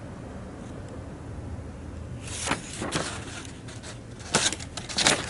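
Sheets of printed paper rustling as they are leafed through, in several brief rustles over the second half, over a low steady hum.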